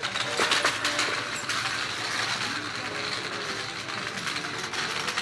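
Metal shopping cart rattling and clattering as it is pushed along, with a cluster of sharper clicks in the first second or so.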